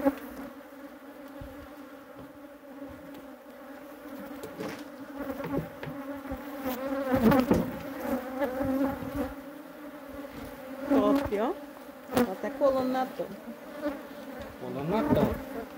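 A honeybee colony buzzing in a steady hum as the hive lid is pried open with a hive tool, with a few sharp clicks of the tool on the wood. Several times bees fly close by in rising and falling whines.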